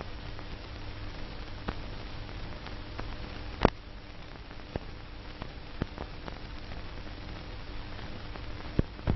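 Surface noise of an old film soundtrack: a steady hiss and low hum, broken by several sharp clicks and pops, the loudest a little before halfway.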